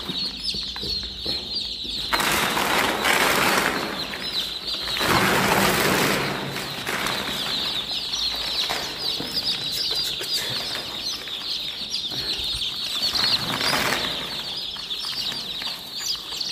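A flock of about a hundred chicks peeping without a break: a dense chorus of quick, high cheeps. Loud rustling comes in bursts about two seconds in, again around five seconds, and briefly near fourteen seconds.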